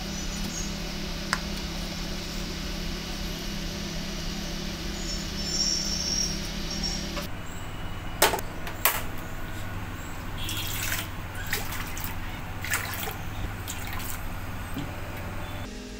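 Water sounds, a steady watery hiss with a low hum, and after a cut a few sharp clinks and knocks.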